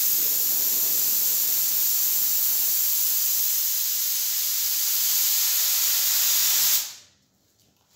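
Gravity-feed paint spray gun on compressed air spraying a car door: a steady hiss of air and atomised paint, the trigger squeezed lightly at first and pressed fully near the end of the pass. The hiss stops about seven seconds in.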